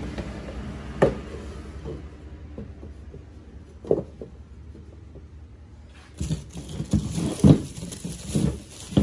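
MDF speaker rings being handled and set against a vinyl door panel: a sharp knock about a second in and another near four seconds, then a run of clattering knocks in the last three seconds. A low vehicle rumble fades out over the first couple of seconds.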